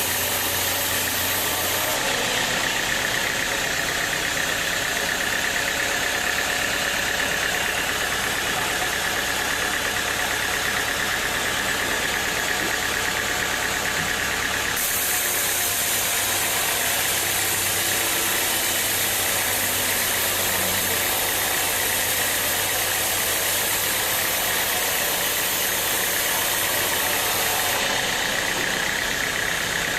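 Large sawmill machinery running steadily: a dense engine-like drone with a steady high whine. The character changes abruptly about two seconds in, about halfway through and near the end.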